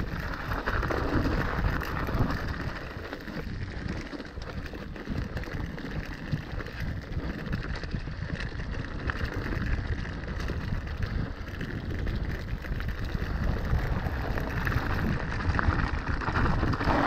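Mountain bike riding down a rough, rocky trail: tyres crunching over dirt and stones, with constant small knocks and rattles from the bike.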